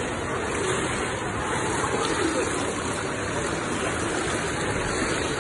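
Steady, even wash of water noise in an indoor swimming pool: splashing from swimmers and water lapping at the pool edge, with faint voices mixed in.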